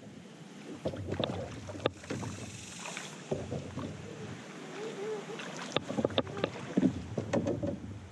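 Paddle moving through the water beside an inflatable paddle board, with water splashing and several sharp knocks spread through the few seconds.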